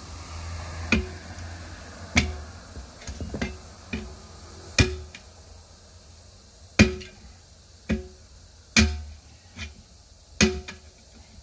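Steel tire irons clanking against a steel 19.5-inch truck wheel as a tire bead is levered over the rim by hand: about ten sharp, uneven metal strikes, each with a short ring.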